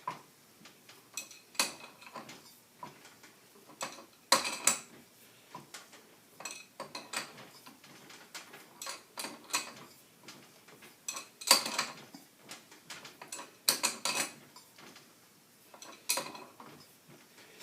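Hand tools working a pulley puller on a power steering pump: irregular metal clicks and clinks, with a few sharper strikes that ring briefly, the loudest about four, eleven and a half and fourteen seconds in.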